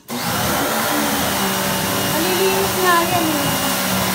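Pressure washer switching on abruptly and running steadily, its motor humming under the hiss of the water jet hitting a window.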